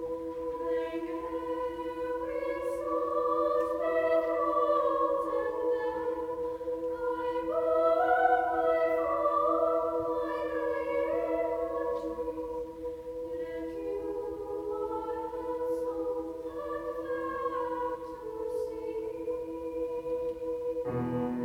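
Treble choir singing unaccompanied: several steady held notes sound under a moving upper vocal line. A piano comes in just before the end.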